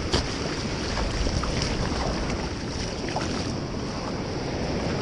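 Foaming surf rushing and splashing around a kayak's hull as it is pushed along by a breaking wave, with wind on the microphone; a steady, even rush with no distinct splashes standing out.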